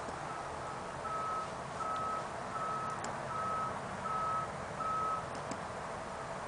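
Vehicle reversing alarm beeping a single steady tone, about eight even beeps at roughly one and a third per second, faint at first and stopping about five seconds in.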